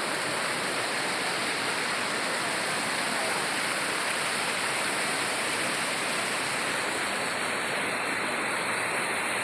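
Waterfall: a steady, loud rush of falling and splashing water.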